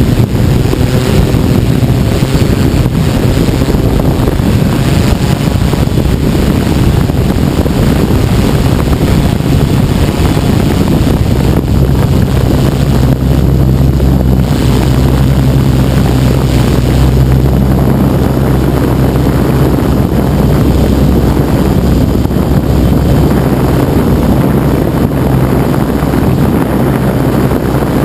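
Tarot 690S hexacopter's motors and propellers running steadily in flight, heard loud and close through the camera carried on the craft, a continuous low hum under rough rushing noise.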